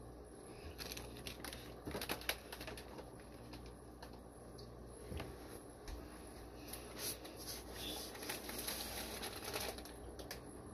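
Plastic fish shipping bags being handled and set down: faint crinkling and rustling with irregular small clicks and taps.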